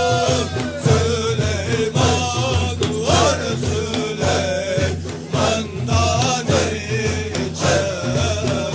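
Sufi Naqshbandi zikr: voices chanting together in wavering melodic lines over a steady low beat of about two beats a second.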